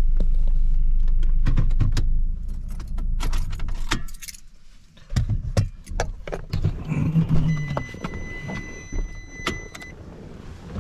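Nissan pickup's engine idling, then stopping about two seconds in, followed by keys jangling and clicks of handling in the cab. A steady electronic warning chime sounds for a couple of seconds near the end, and the driver's door is opened.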